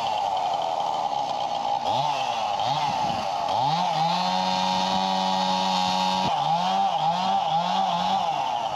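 Chainsaw revving in quick throttle blips, then held at high revs for a couple of seconds about halfway through before dropping back suddenly, then blipped up and down several more times.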